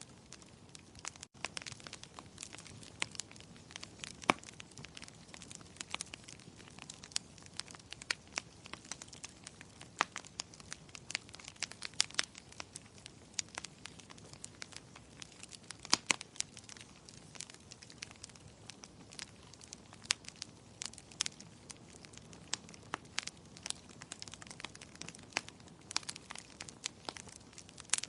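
Wood fire crackling in a fireplace: irregular sharp pops and snaps, a few louder than the rest, over a faint steady hiss.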